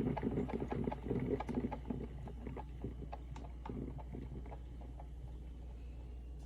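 A run of light, irregular knocks and clicks over a steady low hum. The knocks are busiest and loudest in the first two seconds, then thin out.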